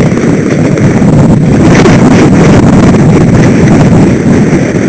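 Strong wind buffeting the microphone on a sailing boat under way: a loud, steady rumble.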